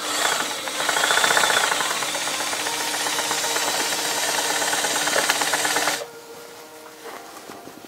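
FOX portable blind-stitch hemming machine running steadily as it sews a hem, its motor hum under a rapid stitching rattle. It stops abruptly about six seconds in, leaving only a few light clicks of the fabric being handled.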